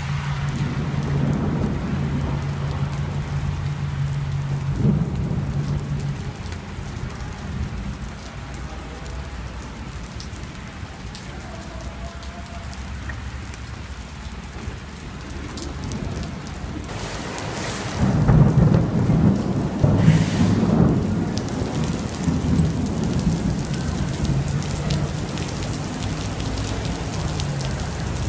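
Heavy rain falling steadily, with a loud thunderclap about eighteen seconds in that rumbles on for several seconds before fading back under the rain.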